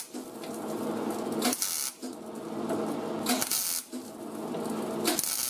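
MIG welder crackling as it stitch-welds a butt joint in thin auto body sheet metal, in three runs of about a second and a half each, separated by brief pauses.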